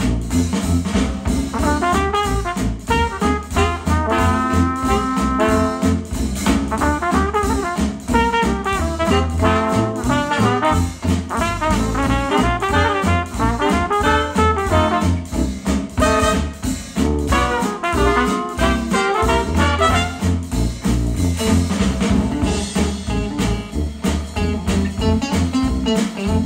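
Retro jazz band with trumpet and trombone playing a swing tune with a steady beat, played back through Micca RB42 bookshelf speakers driven by a Yamaha A-S301 integrated amplifier.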